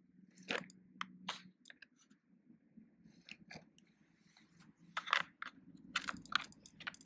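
Small plastic game pieces clicking and rattling as they are handled and set down, in scattered short clicks that come thicker in the last two seconds.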